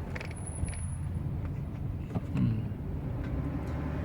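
Chrysler 300C driving, heard from inside the cabin: a steady low road and drivetrain rumble. About half a second in, a thin, very high-pitched tone sounds faintly for under a second.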